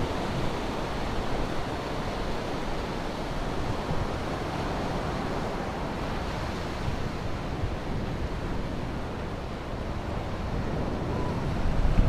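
Sea surf breaking and washing up a sandy beach, a steady rush, with wind buffeting the microphone in uneven low rumbles that grow stronger near the end.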